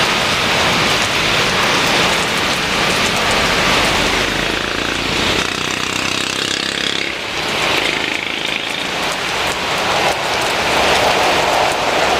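Heavy rain falling steadily, with a jet airliner's engines running as it passes on the runway, the engine noise swelling and shifting partway through.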